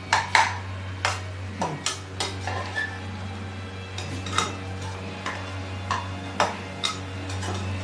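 Perforated metal spatula scraping and knocking against the sides and bottom of an aluminium pressure-cooker pan as chopped capsicum and carrot are stirred and fried in masala. The strokes come as irregular clicks and scrapes over a low steady hum.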